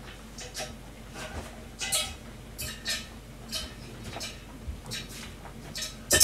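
Metal kitchenware being handled off to one side: about a dozen scattered light clinks and knocks of pots and dishes.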